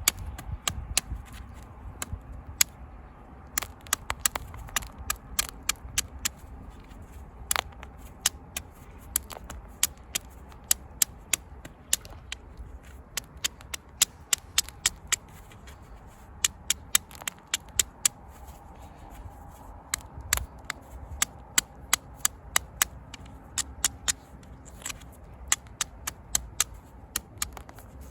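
Small hammerstone tapping the edge of a flint flake: sharp clicks in irregular runs of a few a second as small retouch flakes come off, shaping a scraper edge.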